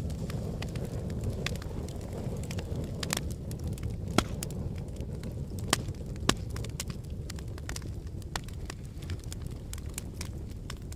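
Erupting volcano's lava: a steady low rumble with irregular sharp cracks and pops scattered through it, the loudest about four and six seconds in.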